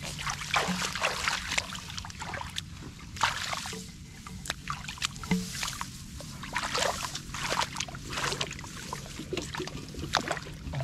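Shallow field water splashing and sloshing in irregular bursts, with sharp slaps and drips, as hands grab for fish in it.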